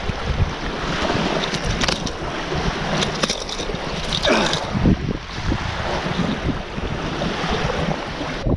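Wind rumbling across the microphone, with small waves washing up onto the beach.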